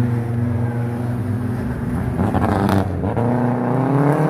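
Audi Quattro Group B rally car's turbocharged five-cylinder engine running at high revs. About two seconds in the note breaks up in a short burst of crackling, as at a gear change, and then the revs climb again.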